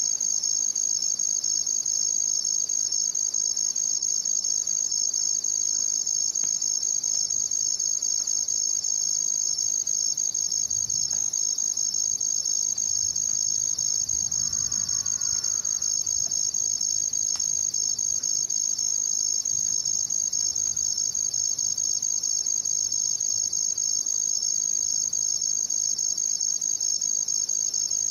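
Crickets chirping at night, a dense chorus of high, rapidly pulsing trills that runs on steady and unbroken.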